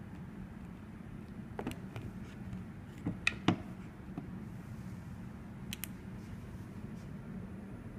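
Test leads and clips being handled on a wooden bench: a few light clicks and knocks, the loudest pair about three and a half seconds in, over a steady low hum.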